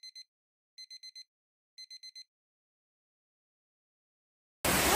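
A sound effect of short electronic beeps in three quick bursts of four, about a second apart, as on-screen text types in. This is followed by silence, then near the end a sudden steady rush of water noise.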